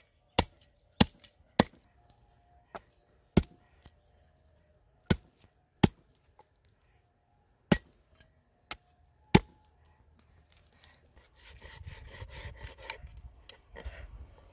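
Meat cleaver chopping through a raw pig's leg onto a thick round wooden chopping block: about a dozen sharp, irregular chops over ten seconds. After the chopping stops, a softer continuous rustling noise follows.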